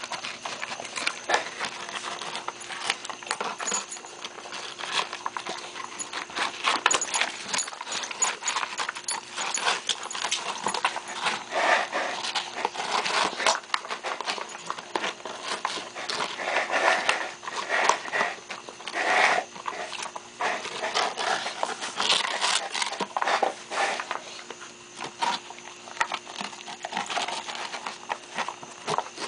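Maremma sheepdog puppy eating from a small plastic tub: a fast, irregular run of clicks and smacks from its mouth and the tub.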